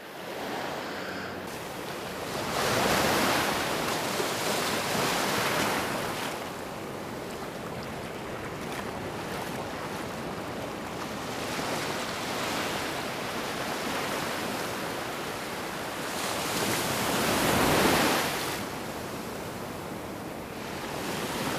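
Ocean surf breaking and washing up the sand, with wind on the microphone. The waves swell louder twice, a few seconds in and again near the end.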